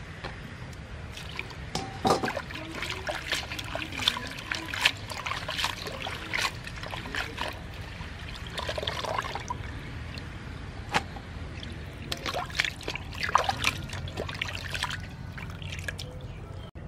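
Hands splashing and swishing water in a stainless steel bowl while washing herbs and peeled papaya: irregular small splashes and trickles throughout.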